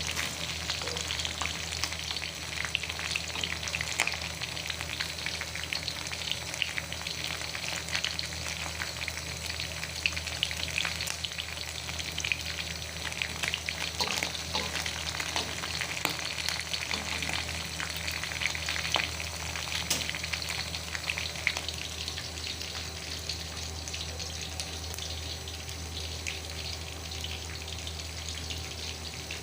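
Food sizzling and crackling in hot oil in a pan, with occasional sharp clicks, over a steady low hum. The sizzle eases off somewhat in the last several seconds.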